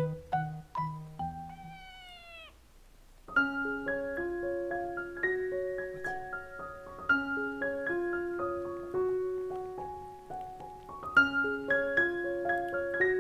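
A kitten gives one drawn-out meow about a second and a half in. After that, gentle piano music with held notes plays.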